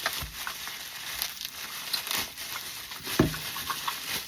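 Plastic packaging crinkling and rustling as a slime kit is handled and unpacked, with a few short knocks.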